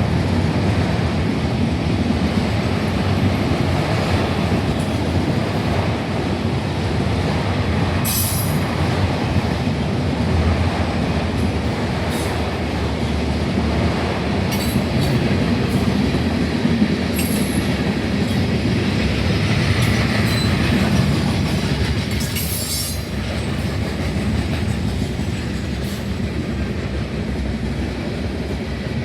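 Freight cars of a manifest train rolling past, a steady rumble of steel wheels on rail with brief high-pitched wheel squeals several times.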